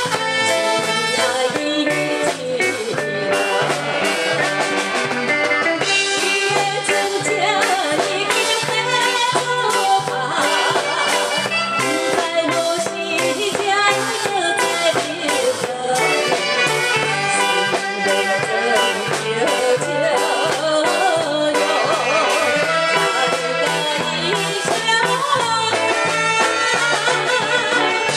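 Live band music with a steady, repeating bass beat under a melody line.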